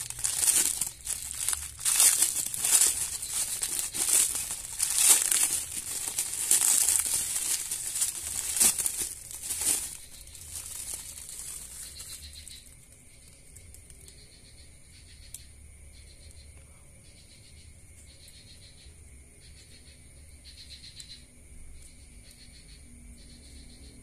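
Clear plastic wrapping crinkling and crackling loudly as it is pulled off a pair of small speaker drivers, dying away after about ten seconds to light, occasional rustles. From about halfway on, a faint, even chirping repeats about once a second.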